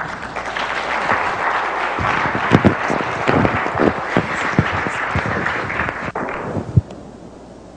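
Audience applauding, with some sharper single claps close by standing out. The applause fades away near the end.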